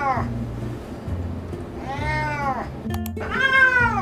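Cats yowling loudly in protest while restrained for an ultrasound exam: long meows that rise then fall in pitch, one fading out just after the start, one about two seconds in and the loudest about three seconds in. Background music plays underneath.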